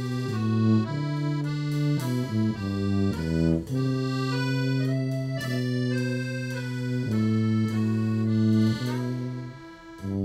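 Accordion playing a slow klezmer melody over held chords, each note sustained for about half a second to a second and a half. The sound dips briefly near the end.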